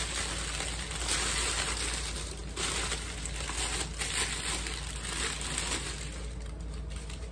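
Shredded paper packing filler rustling and crackling as hands dig through a box. The rustle thins out near the end.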